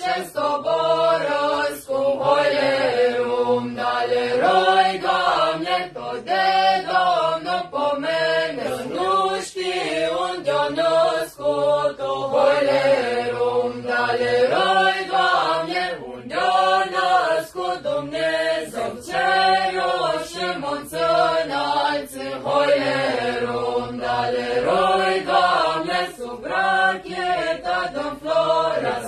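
A group of young men and women singing a traditional Romanian colindă (Christmas carol) together, the melody moving in phrases of a couple of seconds with short breaks between them.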